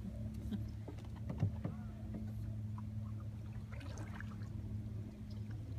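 A steady low hum runs through, with light water lapping and small scattered knocks against a kayak hull.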